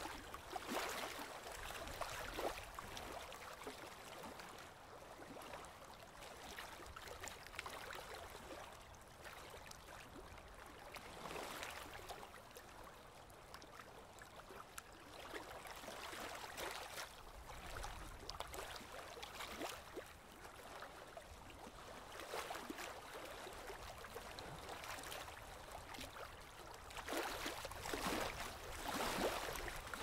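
Small waves lapping at a lake shore: soft, irregular washes of water every few seconds, the strongest near the end.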